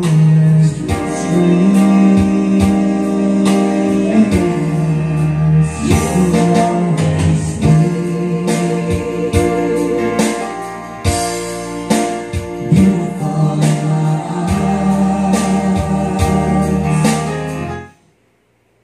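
A karaoke song with singing, played back by a TJ Media TKR-305P karaoke player. It stops suddenly near the end as the song finishes.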